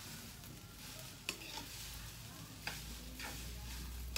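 Fried rice sizzling in a pan, stirred and tossed with a metal spatula that scrapes against the pan a few times.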